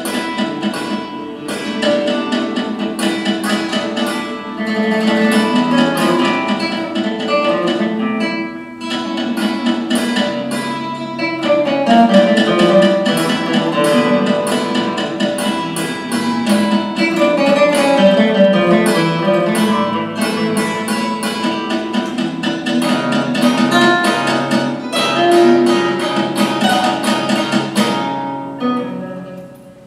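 Guitar quartet playing a contemporary piece from a recording: four guitars in dense plucked passages with many sharp note attacks. The music stops about 28 seconds in.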